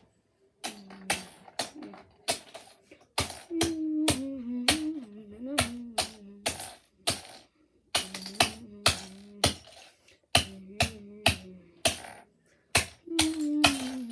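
A child humming a wandering tune while plastic Lego pieces give sharp, irregular clicks and clacks, about two a second.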